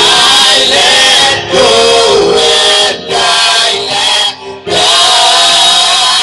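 Gospel vocal group of men and women singing together into microphones, amplified through a PA speaker. The sung phrases break off briefly three times, about every second and a half.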